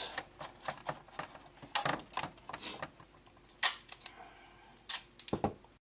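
Irregular clicks and short crinkly rustles of hands working Gorilla Tape onto a cracked plastic RC truck body, a handful of sharp snaps spread a second or so apart.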